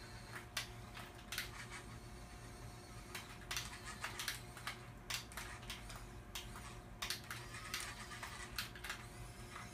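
Irregular light clicks and taps from cats licking and nosing at a lickable cat treat held on a plastic toy RC forklift, over a faint steady hum.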